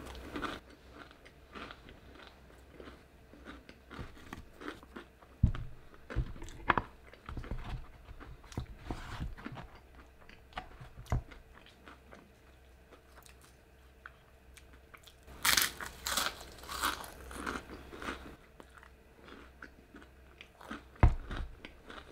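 A person eating crunchy fried food: crisp bites and chewing in irregular bursts, thickest about two-thirds of the way through, with a dull thump near the end.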